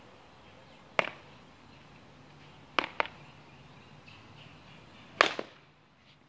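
A few sharp knocks: one about a second in, two close together near three seconds, and the loudest near five seconds followed at once by a smaller one.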